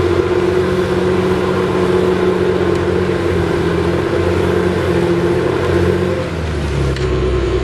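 Diesel engine of a Komatsu D61PX crawler bulldozer running under load while grading, steady and loud; about six seconds in its pitch drops as the engine speed changes.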